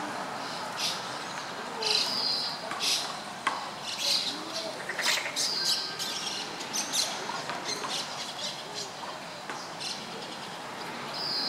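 Oriental greenfinch calling: repeated drawn-out buzzy 'byuu' notes mixed with short high chirps, a call every second or so.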